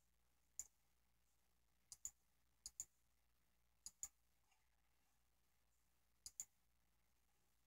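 Computer mouse clicking: one click, then four quick double-clicks spread over several seconds, trying to zoom in on an on-screen map, against near silence.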